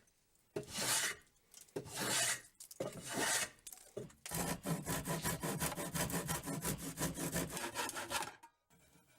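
Hand plane shaving a wooden board. It makes three long, separate strokes, then a run of quicker, shorter strokes for about four seconds.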